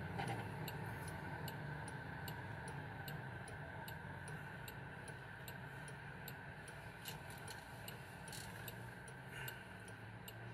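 A car's turn-signal indicator ticking steadily, about two clicks a second, over the low hum of the cabin as the car turns.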